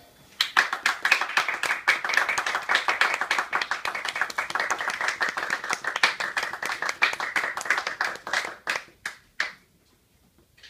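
A small group of people applauding with separate, distinct hand claps. The clapping starts about half a second in, stays steady for several seconds, then thins to a few last claps and stops.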